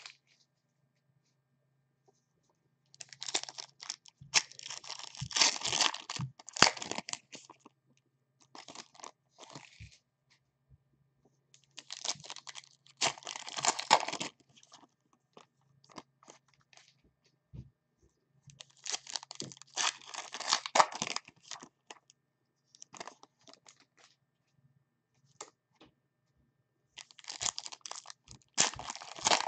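Trading-card pack wrappers crinkling and crunching as packs are handled and opened, in several bursts of a few seconds each with quiet pauses between.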